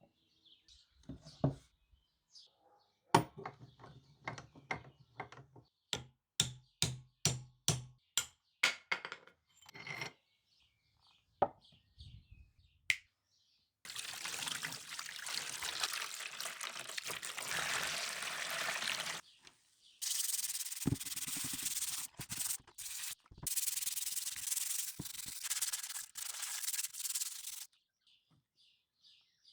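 About a dozen sharp knocks, roughly two a second, then two long stretches of steady abrasive rubbing, typical of sanding or scrubbing rusty metal by hand.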